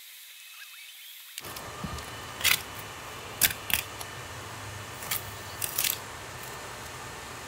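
Masking tape being peeled off a camper's wooden corner trim in six short, sharp pulls. A steady low hum starts about a second and a half in.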